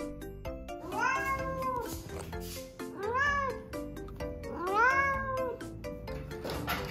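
A tabby cat meowing three times, long calls that each rise and then fall in pitch: impatient meows from a cat shut in its cage, waiting to be let out. Light background music plays underneath.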